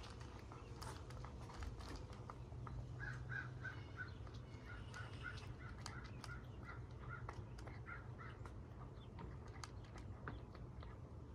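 A cat eating dry food from a bowl, small crunching clicks of its chewing throughout. From about three to eight seconds in, a bird gives a quick series of short calls, roughly three a second.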